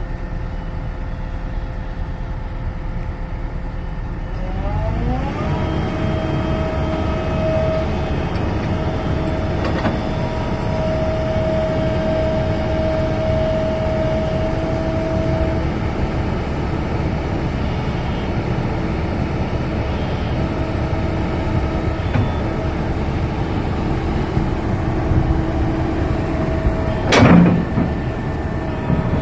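Heavy diesel engine running steadily, then revving up about five seconds in and holding the higher speed. Near the end comes one short, loud burst of hiss.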